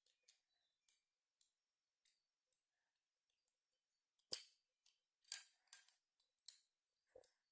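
Sharp clicks and snaps of a crimping tool being handled with UTP cable: a few faint ones, then about five louder clicks in the second half.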